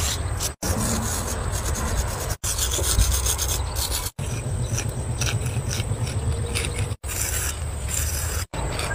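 Charcoal and chalk rubbing and scraping on a concrete road surface, a steady scratchy rasp broken off abruptly several times by cuts.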